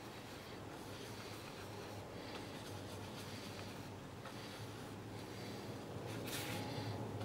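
Quiet outdoor ambience: a steady low hum under a faint hiss, with one short rustle about six seconds in.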